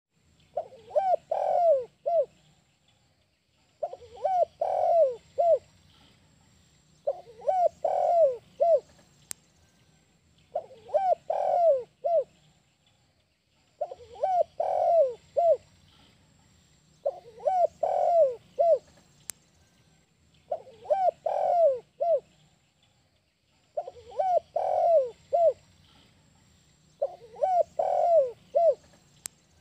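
Spotted dove (tekukur) cooing its song of the 'kuk 1' type: a phrase of several soft, low coos ending in one separate short note, repeated about every three and a half seconds, nine times in all.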